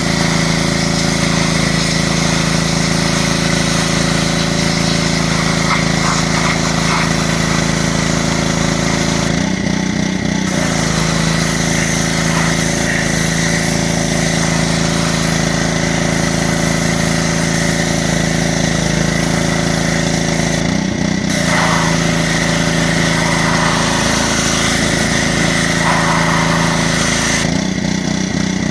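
Pressure washer running steadily with the hiss of its water spray; the spray hiss drops out briefly three times while the motor keeps running.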